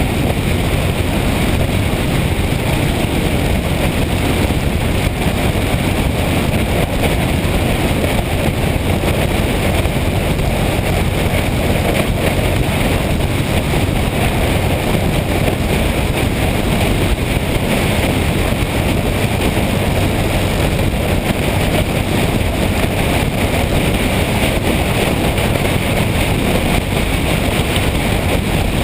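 Steady wind rush over the microphone of a motorcycle on the move, with the engine running under it at an even pace.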